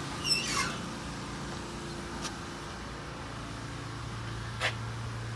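A metal storage compartment door on a bucket truck's utility body swings open with a short squeak that slides down in pitch. Two light clicks follow, with a steady low hum underneath.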